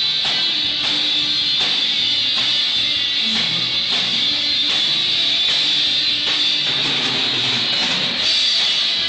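A live band playing through the PA at a sound check: strummed electric guitar over a drum kit, with steady, regular drum hits.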